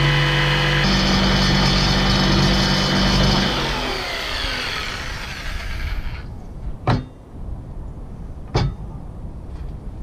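SKIL jigsaw running as it cuts through a pallet-wood board. The motor winds down about three and a half seconds in, once the cut is done, and two sharp knocks follow near the end.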